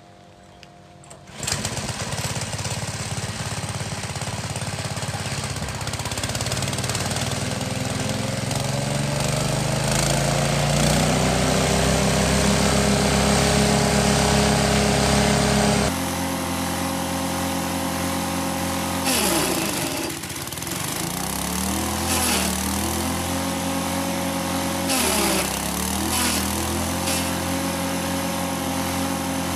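Small engine driving a multi-function forage chopper. It starts up about a second and a half in and speeds up over several seconds, then runs steadily. In the second half its pitch dips briefly twice as moringa stalks are fed into the cutter and chopped, and it recovers each time.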